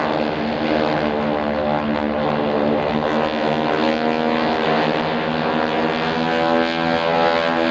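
Stearman PT-17 biplanes' radial engines droning steadily in flight, the pitch drifting slightly as they fly their aerobatic display.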